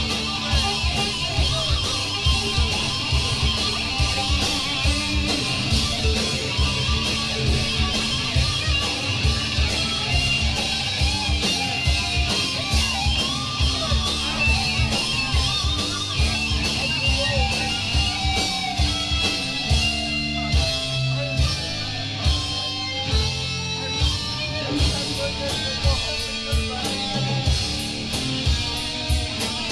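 Live rock band in an instrumental section: electric guitar playing over a steady, evenly struck drum beat.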